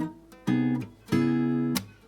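Background music of strummed acoustic guitar chords. New chords come in about half a second in and again about a second in, each ringing briefly before it is cut off.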